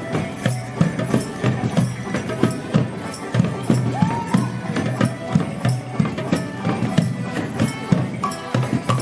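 Morris band playing a folk dance tune on banjo and squeezebox over a steady beat of drums and tambourine.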